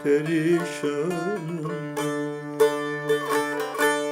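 Turkish folk song: a voice sings the ornamented end of a line, then a plucked string instrument takes over with sharply struck notes over a steady drone.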